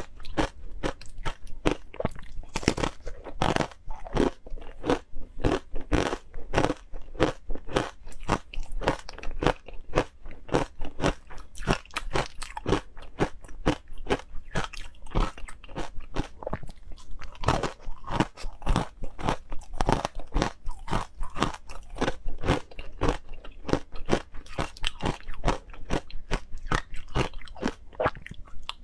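Close-miked crunching and chewing of hard frozen ice coated in green powder: rapid sharp bites and crunches several times a second, without a break.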